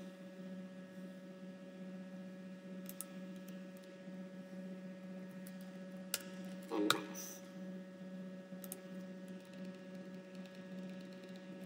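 Steady electrical hum with a few sparse clicks of computer keys being typed.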